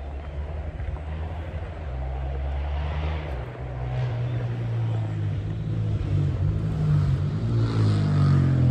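Husqvarna 701 single-cylinder motorcycle engine heard from a distance, revving up and down through the gears and echoing off the forest, growing louder as it approaches.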